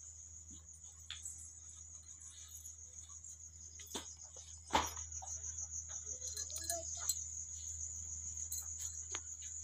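Crickets chirping in a steady, high continuous chorus, with one sharp knock a little under five seconds in.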